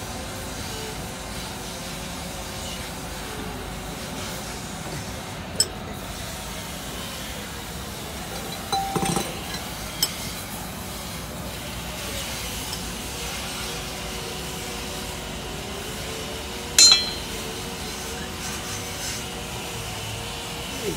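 A handful of sharp metallic clinks from hand tools and bolts against a truck's clutch and flywheel assembly during a clutch replacement, the loudest about three-quarters of the way through, over a steady workshop hum.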